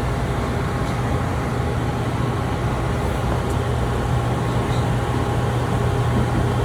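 Steady mechanical hum of the cook's line refrigeration equipment, a low drone with a faint higher whine over it.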